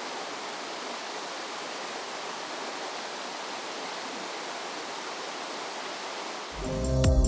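Clear mountain creek rushing steadily as it spills over boulders in a small cascade. Near the end, loud electronic music with a heavy bass beat cuts in.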